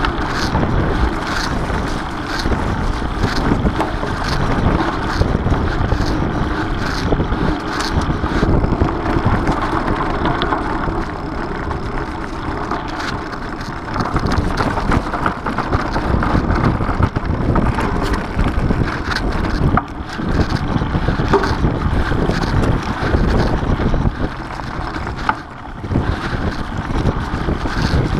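Mountain bike riding over a leaf-strewn dirt singletrack: steady rolling noise with frequent clicks and rattles over bumps, and wind on the camera microphone.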